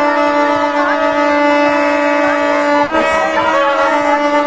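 A plastic vuvuzela-style horn blown in one long steady note. It breaks off briefly about three seconds in, then sounds again, with crowd voices faintly behind.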